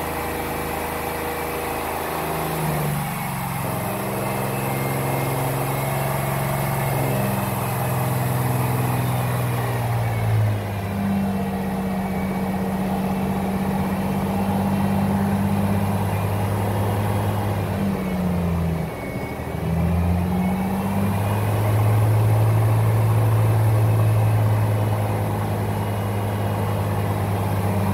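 Freshly rebuilt Ford 300 cubic-inch (4.9 L) inline-six engine running, its speed dropping about three seconds in, rising again around ten seconds, dipping and picking back up near twenty seconds, then holding a steady higher speed.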